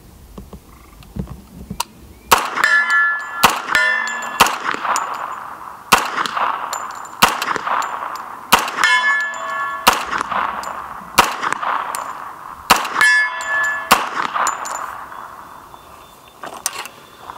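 CMMG Guard .45 ACP carbine fired semi-automatically, a string of single shots of 230-grain FMJ ball at an unhurried pace, about one a second, starting about two seconds in. Steel plate targets ring after the hits.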